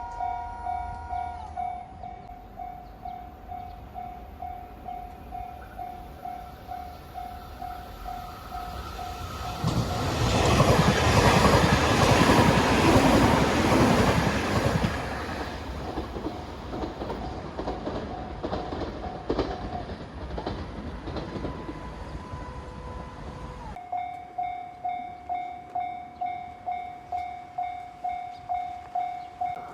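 Japanese level-crossing warning bell clanging at about two strokes a second while a train passes, loudest about ten to fifteen seconds in, then its wheels clatter over the rail joints as it moves off; the bell keeps ringing.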